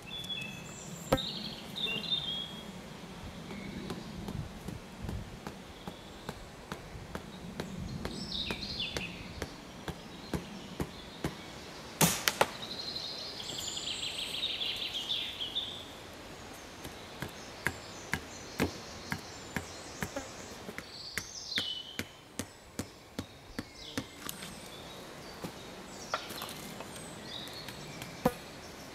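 Small axe knocking and chopping on wood: scattered sharp strikes, one loud knock about twelve seconds in, then a steady run of lighter strikes about two a second. Birds chirp briefly between them.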